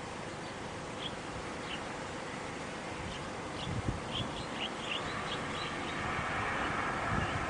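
Steady outdoor hiss with a string of short, high chirps through the middle. Near the end a steady rushing noise builds slowly: a train starting to approach.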